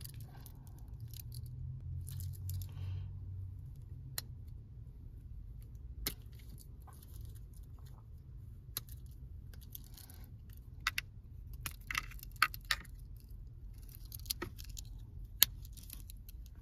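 Stiff plastic blister packaging being cut and pried open with a small Swiss Army knife blade: scattered sharp clicks and snaps with crinkling plastic, busiest in the second half, over a low steady hum.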